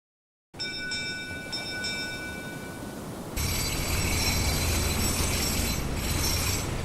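A bell struck about four times in quick succession, its ringing dying away by about three seconds. About three and a half seconds in, a louder deep rumble comes in with hiss and high metallic ringing over it.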